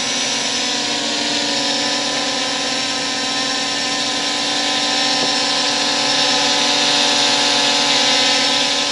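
Temu S177 folding quadcopter's brushless motors and propellers whining steadily as it hovers, the pitch wavering slightly. It grows a little louder past the middle.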